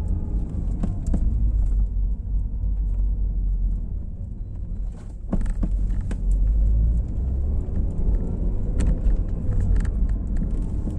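Fiat Palio driving slowly, a steady low rumble of road and engine heard close to the front right wheel, with a few faint short clicks.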